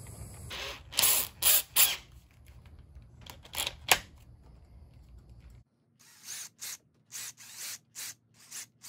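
Cordless drill run in several short bursts, spinning a length of wire clamped in a bench vise to twist it.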